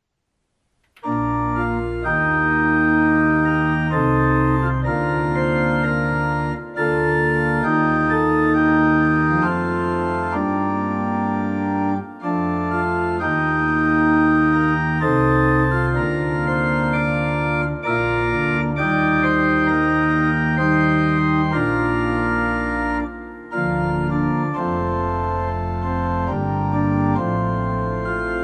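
Organ playing a hymn tune as sustained chords, starting about a second in, with short breaks between phrases.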